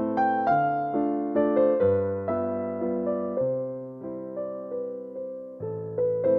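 Background music: electric piano playing slow chords, each struck and then fading.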